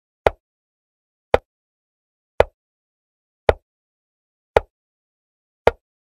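Chess software's piece-move sound effect: six short, sharp clicks at an even pace of about one a second, each one a move being played on the board.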